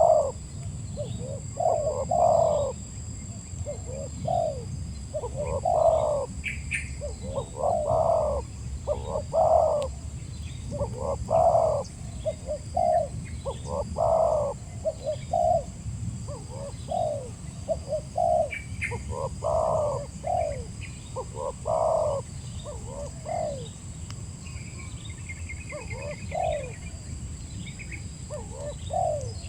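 Spotted dove (tekukur) cooing over and over in short phrases of several low coos, with a steady low rumble beneath. Faint higher chirps of small birds come and go, with a brief trill near the end.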